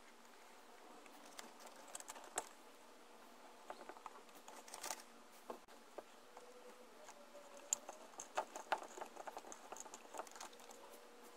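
Faint, irregular small clicks and taps from fingers handling a bent-wire crank on the flywheel shaft of a homemade syringe air engine, coming thicker in the second half.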